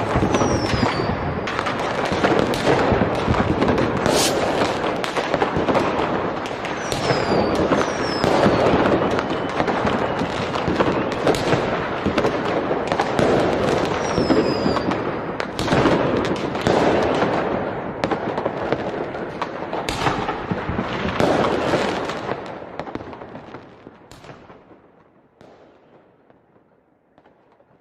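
Fireworks going off: dense, continuous bangs and crackling, with a few short whistles that fall in pitch. The sound fades away over the last few seconds.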